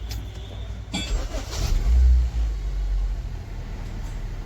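Maruti Suzuki SX4 petrol engine being restarted: a click about a second in, the engine catching with a brief rise in revs, then settling into a steady idle. It starts promptly on petrol with a newly fitted fuel pump, the fault behind its earlier hard starting and misfire.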